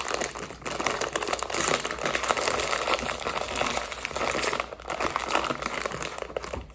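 Crinkly plastic snack bag of Beaver Nuggets being handled and opened, a steady run of crackling with a short pause a little past halfway.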